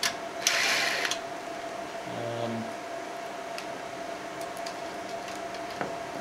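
Cordless DeWalt drill-driver run briefly, about half a second in, driving a screw into a sheet-metal bracket, followed near two seconds in by a short low hum as the trigger is touched again.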